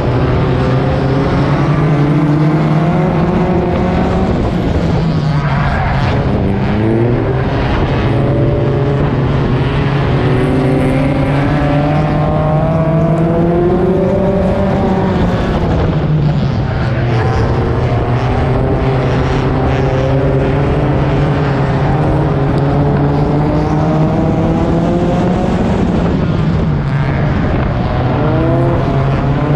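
Four-cylinder race car engine heard from on board, running hard. Its pitch rises and falls several times as the car speeds up and backs off in a pack of other cars.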